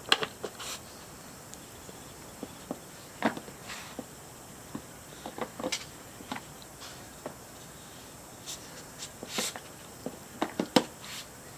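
Plastic lids and compartments of a Trixie Poker Box 2 dog puzzle clicking and knocking irregularly as a Chihuahua noses and paws at them for treats.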